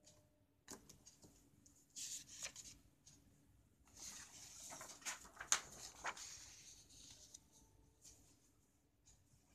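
Paper rustling and crackling as a large sheet is handled and turned to a fresh page, in two bursts with a few sharp clicks in the middle of the second.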